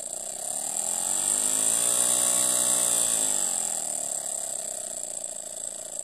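Miniature brass twin-cylinder steam engine running on low-pressure compressed air, a fast buzzing hum with a steady hiss of escaping air. About a second in it speeds up, rising in pitch and getting louder, then slows back down over the next few seconds.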